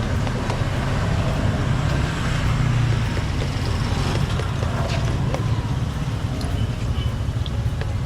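Busy street traffic: motor vehicles passing by, with a steady low engine rumble.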